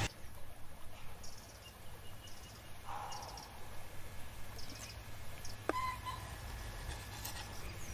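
Quiet outdoor ambience with a steady low background and a few short bird chirps, the clearest about two-thirds of the way through.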